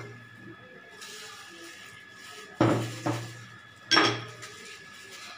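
Dishes knocking as ingredients are tipped from small plates into a plastic mixing bowl: three sharp knocks in the second half, over a faint steady high tone.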